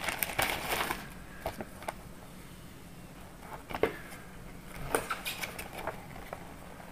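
Clear plastic pouch crinkling and paper rustling as a user manual is drawn out of its sleeve and opened: a short cluster of crinkles at first, then a few isolated soft clicks.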